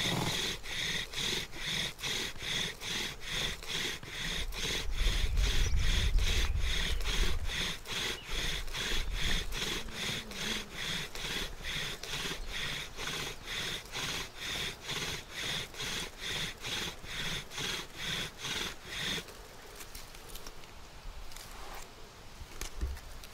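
Bow drill running: an elderberry spindle, driven back and forth by a bow with a bootlace cord, grinding in the notch of an elderberry fireboard at about two strokes a second, each stroke a squeaking wooden rasp. This is the steady, moderate-pressure stage that fills the notch with dark brown dust before going for a coal. The strokes stop about 19 seconds in.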